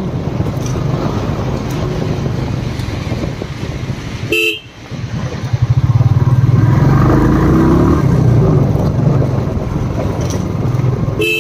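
Royal Enfield Bullet single-cylinder motorcycle engine running on the move, getting louder from about six seconds in as it pulls harder, with vehicle horns honking in traffic. The sound drops out briefly just before that.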